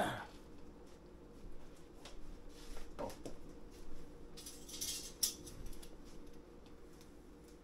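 Faint scattered clinks and knocks of kitchen utensils and cookware over a low steady hum, with a brief hiss about five seconds in.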